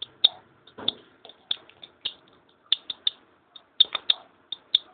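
Young chicken chick peeping: short, high peeps, about four a second in uneven clusters.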